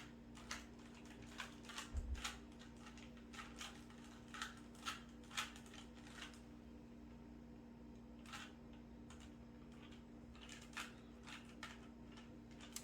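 Plastic Rubik's cube being twisted, its layers turning in a scatter of faint, irregular clicks with a lull of about two seconds midway, over a steady low hum.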